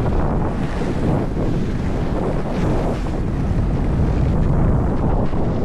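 Wind buffeting the microphone with a steady low rumble, as while rolling along at speed.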